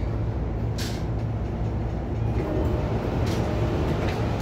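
An E233-1000 series electric commuter train hums steadily and low, with a short hiss about a second in and another after about three seconds.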